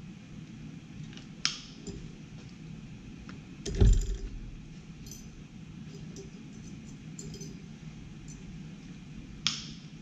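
Long-handled cable crimp tool and metal parts clinking at a bench vise while a crimp sleeve is squeezed onto 1/8-inch steel parking brake cable. There are a few sharp clicks and light clinks, and a heavy metallic clunk about four seconds in is the loudest sound.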